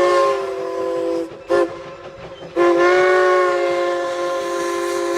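A train's air horn sounding a chord of several notes in three blasts: a long blast ending about a second in, a brief one at about a second and a half, then another long one of about two and a half seconds. This long–short–long run is the close of a grade-crossing signal.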